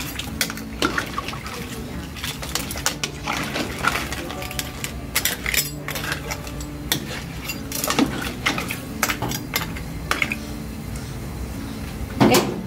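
A long metal spoon stirring soup in a large metal stockpot, clinking and scraping irregularly against the pot's side, with liquid sloshing. A louder clank comes near the end.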